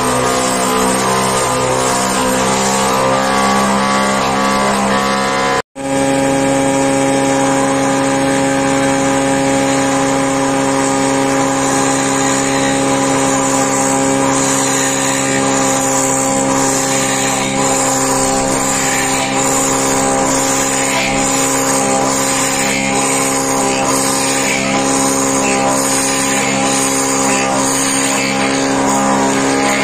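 Woodworking planer with a horizontal boring attachment running at speed, its chuck and bit cutting into a clamped plank: a loud, steady machine whine with the rasp of the bit chewing out wood chips. The sound cuts out for a moment about six seconds in, then resumes.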